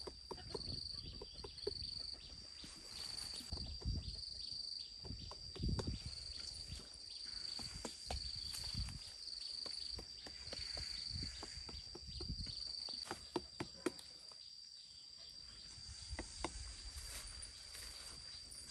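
Insects trilling at one high pitch, in short repeated pulses for most of the time and then unbroken near the end, over scattered low thuds and sharp clicks.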